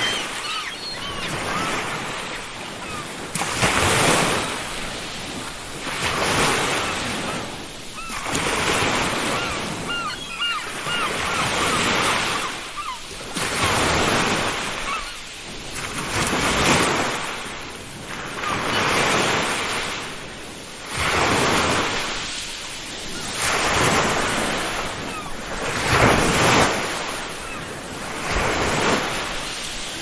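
Ocean surf breaking on a beach, the wash swelling and fading every two to three seconds. Seagulls call over it, with a quick run of short calls about a third of the way in.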